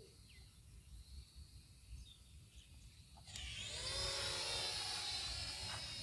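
Wind rumble on the microphone. About three seconds in, the high whine of a toy quadcopter's rotors cuts in suddenly, rises briefly in pitch and then holds steady.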